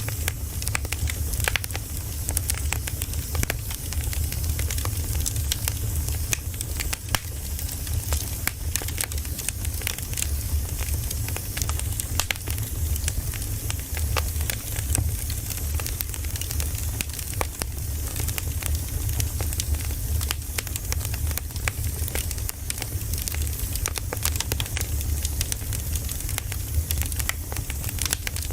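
Campfire burning and crackling, with frequent irregular small pops and snaps over a steady low rumble.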